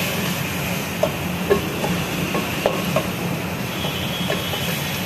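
Wooden spatula stirring and scraping beef, onions and spices as they fry in a metal pot, with scattered short knocks of the spatula against the pot over a steady sizzle.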